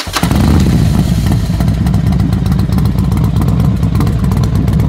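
Motorcycle engine running loud at steady revs, with a fast, even pulse, used as the sound of a logo intro.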